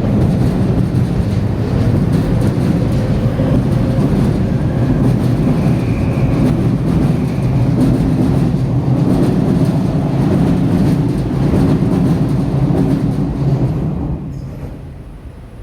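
A Seibu Shinjuku Line train passing over the level crossing: a loud, steady rumble of wheels on rail with light clatter over the rail joints. It fades away near the end.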